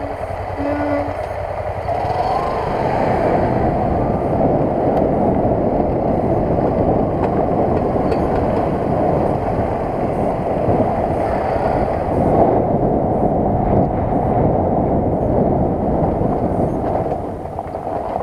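Motorcycle engine working hard under load as the bike climbs a steep dirt hill. It grows louder about two seconds in and eases off near the end.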